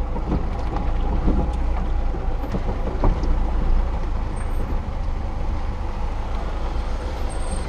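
Lada Niva 2121's engine running under load at low speed, a steady low drone heard from inside the moving car, with a few knocks over rough ground, the sharpest about three seconds in.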